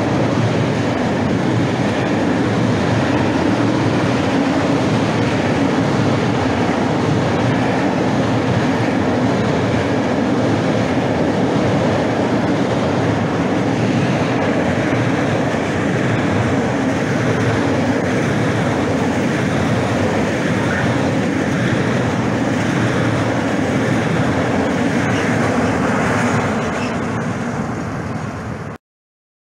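Freight train wagons rolling steadily past close by, with a loud, continuous clatter of wheels on the rails. The noise eases slightly as the end of the train goes by, then the audio cuts off abruptly just before the end.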